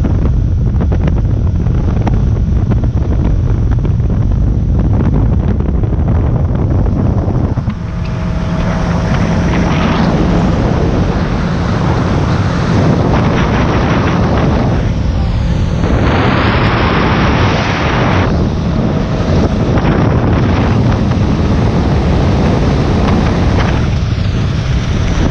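Heavy wind buffeting on the microphone and rushing water from a Robalo 222 center-console boat running at speed, with the hum of its 200 hp outboard faintly underneath. The mix shifts a few times as the camera mount changes.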